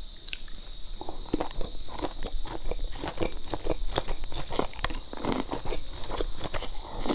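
Close-miked mouth sounds of someone biting and chewing wide, chewy starch noodles in spicy sauce: a run of irregular short clicks and smacks over a steady hiss.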